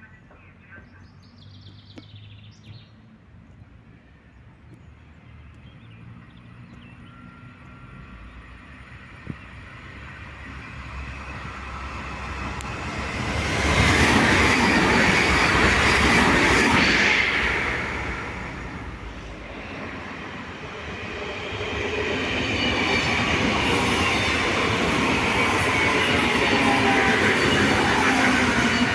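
Train running through a railway station. The rail noise builds up, is loudest about halfway through, eases briefly, then swells again over the last several seconds, with wheel squeal on the rails.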